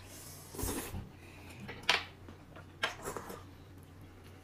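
Tableware clinking and knocking at a meal: a soft clatter, then two sharp clicks about a second apart, the first the loudest, and a few small taps after.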